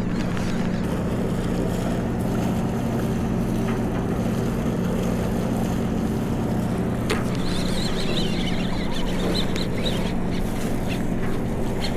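Steady low drone of a large party fishing boat's engine, a constant hum with a wash of noise over it.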